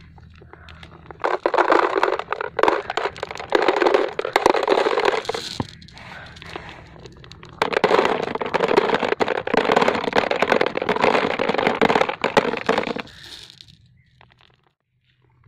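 Gritty crackling and scraping against dirt and a clear plastic jar, in two long stretches full of fine clicks: one starting about a second in, the other starting about halfway through. The sound fades out near the end.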